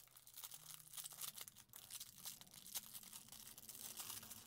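Thin plastic packaging crinkling and crackling as fingers handle it, a faint run of small irregular crackles.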